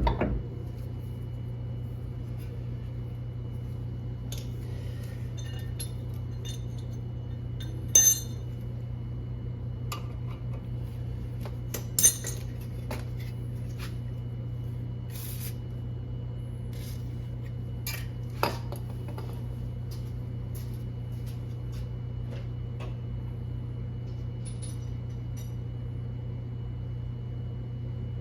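Hand tools and metal car parts clinking and knocking every few seconds during work on a car's drive axle, the loudest clink about twelve seconds in, over a steady low hum.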